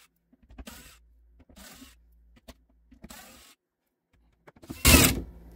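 Cordless drill/driver running in three short bursts, backing out loose cabinet hinge screws, followed by a loud knock near the end.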